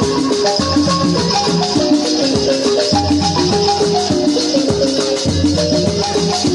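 Background music: a melody of short, clear notes over a recurring bass and a steady high, rattling percussion rhythm.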